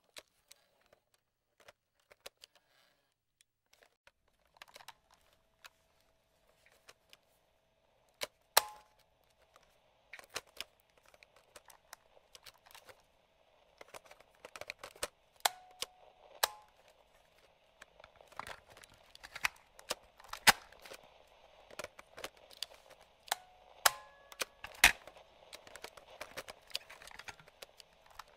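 Plastic slide switches and lever buttons on a vintage radio and cassette player clicking, a few scattered clicks at first, then many in quick succession with several sharp loud snaps. From about ten seconds in, a faint steady hiss runs under the clicks.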